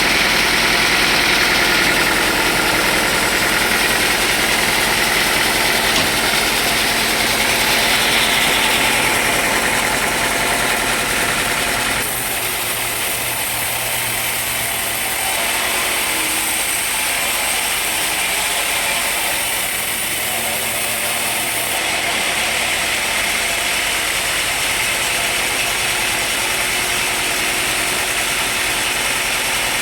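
Sawmill machinery running steadily. The tone changes about twelve seconds in, when the low rumble drops away.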